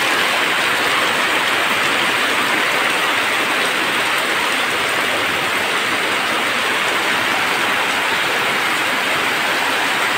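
Heavy rain falling steadily, an even rushing hiss.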